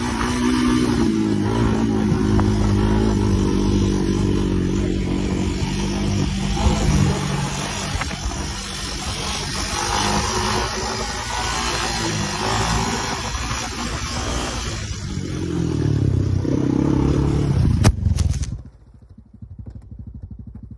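Honda TRX250X quad's single-cylinder engine running while ridden over grass, its note rising and falling with the throttle. Near the end a sharp knock, then the engine sound drops away to a faint low pulsing.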